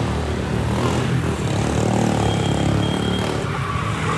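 A motor vehicle's engine passing close by on the street. It grows louder about a second in and eases off near the end.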